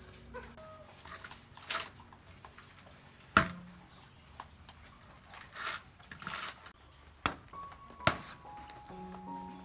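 Bowls and basins being handled: short splashing, rustling noises, a loud sharp knock about a third of the way through, and a couple of sharp clicks later on. Background music comes back in near the end.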